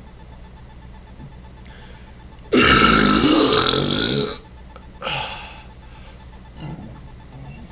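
A long, loud human burp lasting about two seconds, starting a couple of seconds in, followed about half a second later by a shorter, quieter burp.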